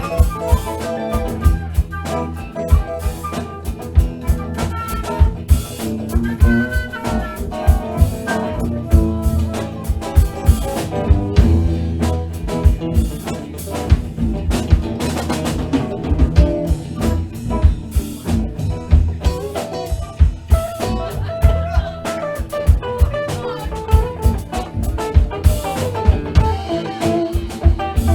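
Live band playing an instrumental jazz-blues boogie, with a drum kit keeping a steady beat under pitched instrument lines.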